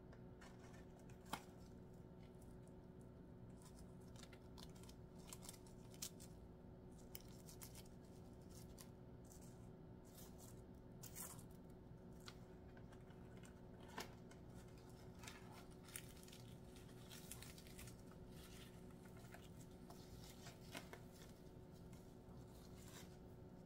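Fried fish fillets being torn apart by hand: faint, scattered crackles and small ticks from the crisp breading, over a faint steady hum.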